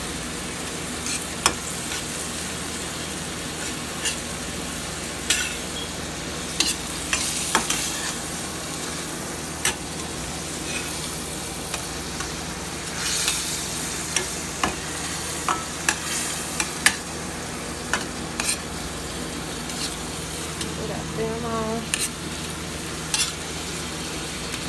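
Ground beef sizzling in a stainless steel skillet, with a metal spatula scraping and clacking against the pan at irregular moments as the meat is stirred and broken up.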